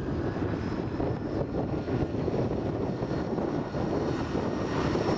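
Quad bike engine running steadily as it approaches along a lane, drawing closer.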